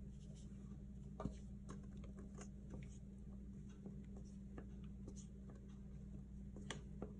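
Silicone spatula scraping and tapping inside a stainless steel mixing bowl as chocolate cake batter is poured out. It gives faint, irregular ticks, a couple of them sharper, over a steady low hum.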